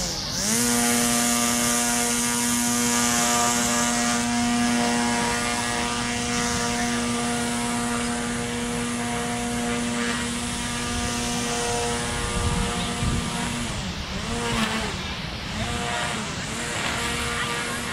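Small two-stroke engine of a handheld garden power tool running at steady high revs. About fourteen seconds in, the revs drop and pick up again a couple of times before holding steady.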